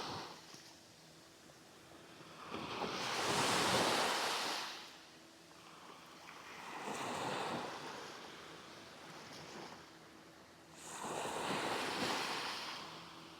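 Sea waves breaking and washing up on a sand beach, three surges about four seconds apart, the first the loudest.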